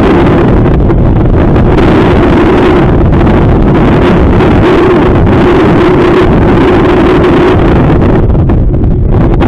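Strong wind buffeting the microphone, very loud and steady, with a steady hum underneath.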